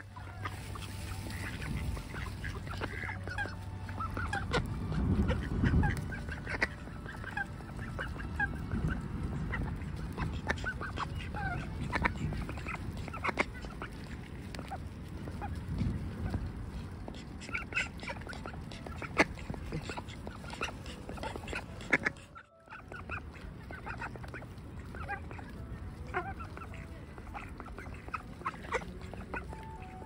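Mallard ducks and other waterfowl calling with many short quacks and honks while they feed. The sound cuts out briefly about 22 seconds in.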